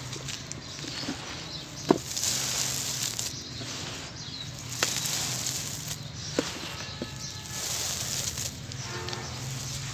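Dry gritty dust and clumps crumbled by hand and showering onto a dusty floor: a rustling hiss that swells in two bursts, with a few sharp crunchy clicks, the loudest about two seconds in.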